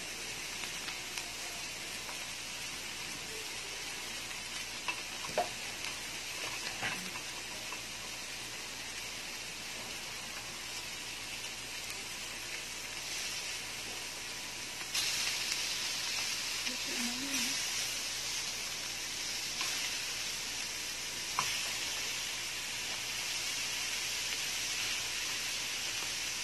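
Chicken, crab sticks and garlic sizzling on a hot round grill pan, a steady frying hiss that gets louder about fifteen seconds in as more raw chicken goes onto the pan. A few light utensil clicks.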